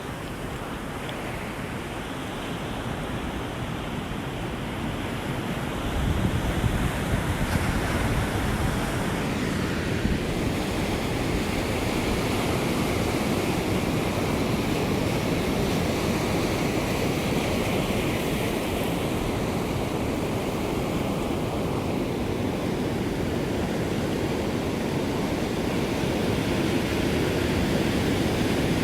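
Ocean surf: a continuous rush of waves breaking and washing on the shore, swelling louder about six seconds in and then holding steady.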